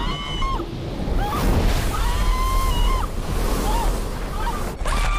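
Underwater film soundtrack: a rushing, bubbling water ambience over a deep rumble, with several drawn-out high wailing tones that bend down at their ends, the longest lasting about a second near the middle.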